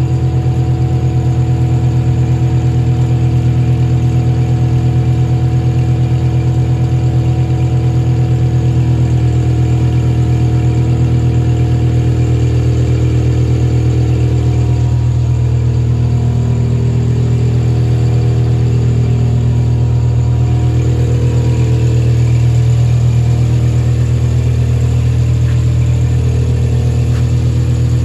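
Engine of a piece of heavy equipment idling steadily, its tones wavering somewhat midway.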